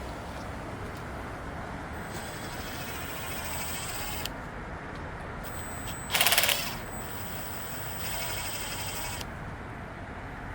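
Impact wrench firing one short rattling burst, about two-thirds of a second long, about six seconds in as it breaks loose a bolt on a GM LQ9 V8 during teardown. A steady low shop hum lies underneath.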